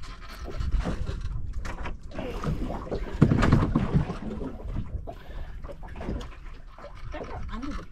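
Wind rumbling on the microphone and water noise around a small open boat at sea. A short, louder stretch of low voice comes about three seconds in.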